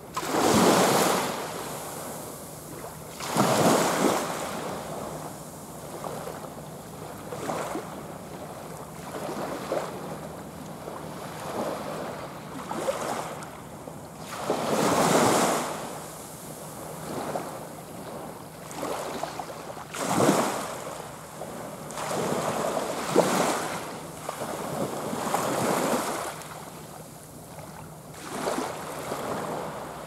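Small waves breaking and washing up a sandy, pebbly beach, rising and falling in repeated surges every few seconds.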